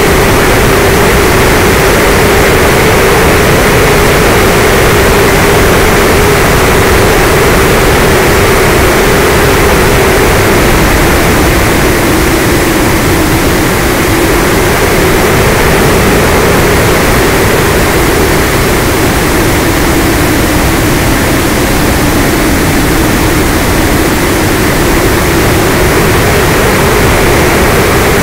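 Electric motor and propeller of an FPV model aircraft running steadily under loud wind rush on its onboard camera, the motor hum sagging slightly in pitch midway and rising again near the end.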